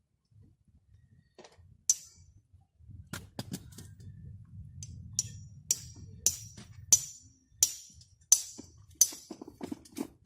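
A run of sharp knocks, one about every two-thirds of a second from about halfway through, after a few scattered taps, over a low steady rumble.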